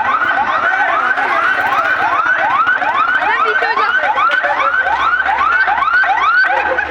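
Fire engine's electronic siren in a fast, repeating yelp, about two and a half sweeps a second, each rising in pitch and then levelling off. The yelp stops just before the end.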